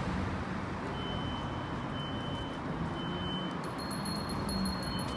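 Steady road traffic noise on a busy city street, a low rumble of passing vehicles. A faint, high, steady tone sounds on and off over it.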